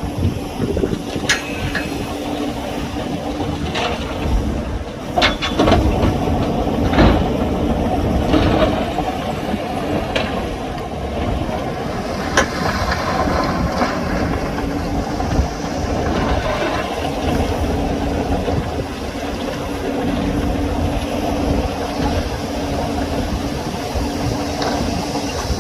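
Heavy earthmoving machinery's diesel engine running steadily, with several sharp metallic clanks.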